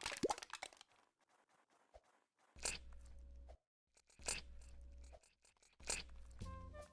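Crunching sounds: a quick run of crackles at the start, then, after a pause, three single crunches spaced about a second and a half apart.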